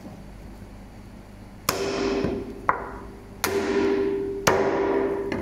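Meat cleaver chopping wild boar meat on a cutting board: four heavy strokes about a second apart, each followed by a ringing tone.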